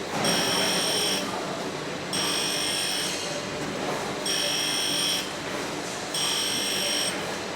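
Grinding machine running with a steady grinding noise, broken about every two seconds by a high-pitched whine lasting about a second, as metal is pressed against the grinding wheel in repeated passes.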